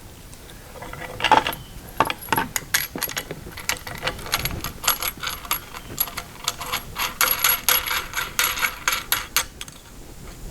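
A 19 mm wrench running a nut down onto the mount of a replacement rear turn signal light on a Kubota tractor: a long run of quick metal clicks, thickest in the second half.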